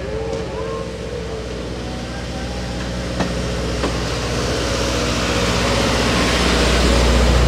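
Passenger train cars rolling slowly past on the rails, a steady low rumble growing louder, with two sharp clicks a little after the middle.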